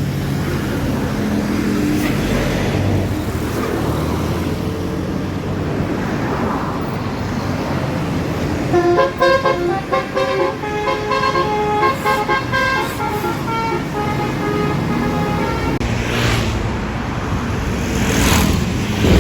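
Bus engine and traffic rumble, then about nine seconds in a tour bus's roof-mounted Basuri 'telolet' musical horn plays a quick stepping melody for about seven seconds.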